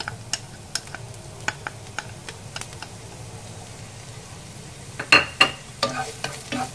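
Minced shallot and garlic sizzling in a little hot oil in a non-stick frying pan, with scattered small crackles and pops. About five seconds in, wooden chopsticks start stirring them, knocking and scraping against the pan.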